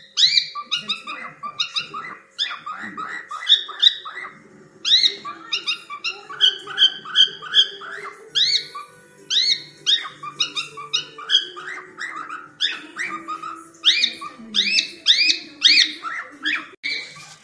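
Cockatiel calling steadily: a rapid run of short upward-sweeping chirps, a few a second, broken by brief pauses.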